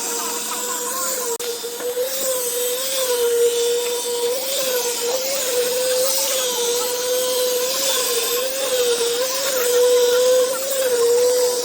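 A machine running steadily on a concrete slab site: a constant, fairly high-pitched hum that wavers slightly in pitch, over a hiss of site noise.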